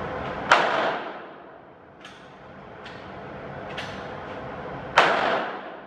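Two loud .22 LR gunshots, about four and a half seconds apart, each with a short echoing tail. Three fainter sharp cracks come between them.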